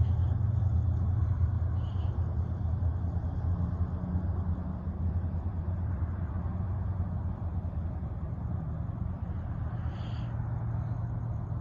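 Union Pacific rock train rolling past: a steady low rumble that eases slightly over the first few seconds.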